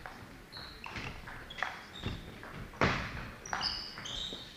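Sports shoes squeaking briefly on a wooden sports-hall floor, mixed with a few thuds and taps that echo in the large hall; the loudest thud comes about three seconds in.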